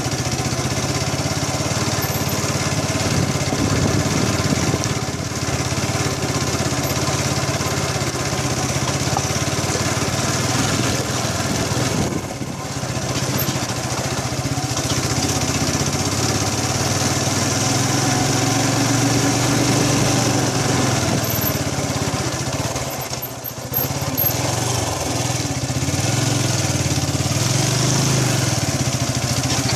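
Motorcycle engine running steadily at low speed on a rough dirt track, with a steady rushing noise over it. The sound dips briefly twice, about twelve and twenty-three seconds in.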